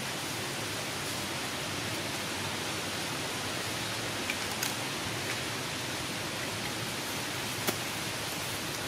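Steady even hiss of outdoor background noise, with a few brief faint clicks and one sharper click near the end.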